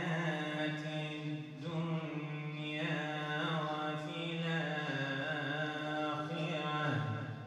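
A man's voice chanting Quranic recitation in the slow, melodic tajwid style, holding long drawn-out notes with ornamented turns in pitch; the phrase ends and fades shortly before the end.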